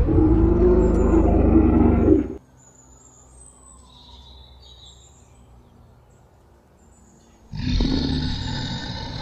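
Dinosaur roar sound effect for a toy Tyrannosaurus rex: a loud roar lasting about two seconds, then a quiet stretch with faint bird chirps, then a second roar beginning near the end.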